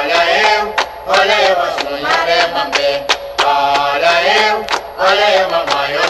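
Recorded Umbanda ponto for Oxum from a 1976 LP: voices singing a chant-like melody over a steady percussion beat, about two to three strokes a second.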